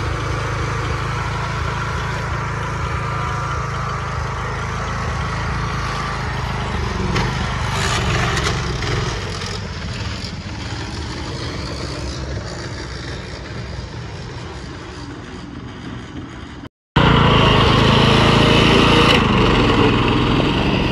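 Poulan riding lawn mower's engine running as the mower is driven off, fading steadily for about sixteen seconds; after a short break it returns louder.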